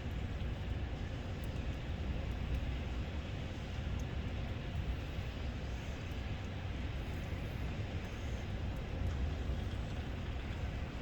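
Heavy rain from a tropical storm falling steadily, a dense unbroken hiss with a strong low rumble underneath.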